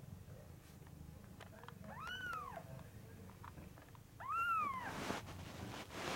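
Very young Norwegian Forest Cat kitten mewing twice, about two seconds in and again near the middle, each a short high cry that rises then falls in pitch, followed by a brief rustle.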